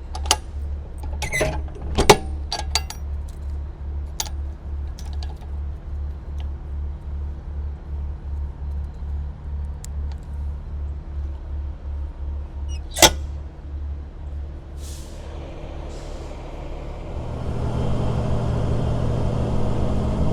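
Semi-truck's diesel engine idling with a low, even pulse, with a few clicks and knocks in the first seconds and a sharp snap about 13 seconds in. From about 17 seconds the engine note grows louder and fuller as the truck pulls away under load.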